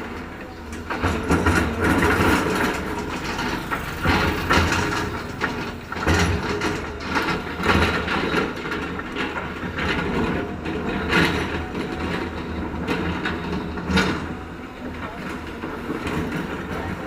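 Heavy construction machinery running with a low rumble and irregular clanks and knocks.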